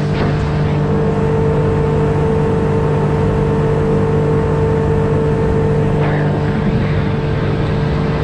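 Outboard motor driving a small aluminum boat at a steady cruising speed, its running note holding even, with water rushing along the hull.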